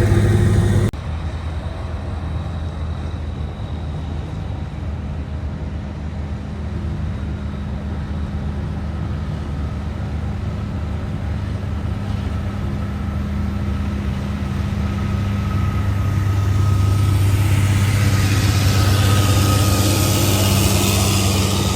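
Komatsu D275AX bulldozer's diesel engine running steadily with a thin high whine over it. Level drops sharply about a second in, then builds again, growing louder and noisier over the last few seconds as the machine works.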